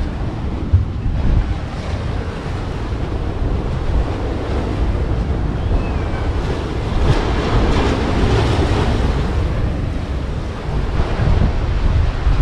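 Wind buffeting the microphone over a steady rush of water, swelling for a couple of seconds about seven seconds in.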